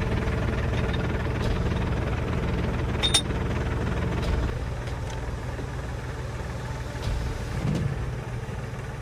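A construction machine's engine running steadily with a low rumble. There is a single sharp click about three seconds in, and the engine gets a little quieter about halfway through.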